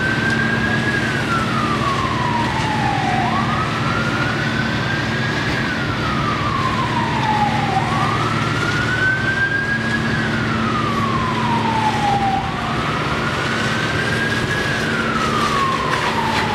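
Emergency-vehicle siren sounding a slow wail, rising over about a second and a half and falling over about two and a half, four times, over a steady low drone.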